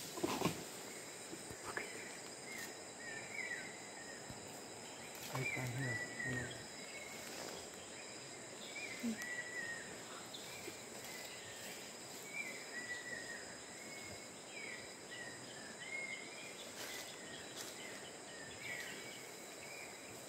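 Rainforest ambience: a steady high-pitched insect drone, with short chirping calls repeating every second or so throughout.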